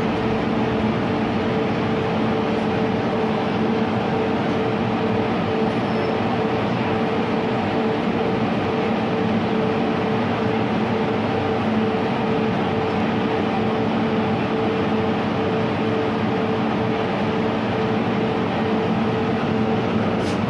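Steady hum and drone inside a stationary MTR M-Train metro car standing at a platform, with a constant pitched tone over an even noise.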